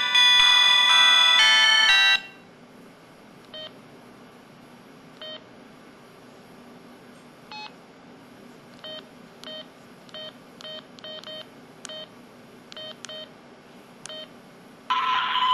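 Can-U HS5000 mobile phone's built-in sounds through its speaker: a bell-like chime melody ends abruptly about two seconds in, then about a dozen short, identical key beeps at irregular intervals, as of buttons being pressed. Near the end, another loud phone sound starts.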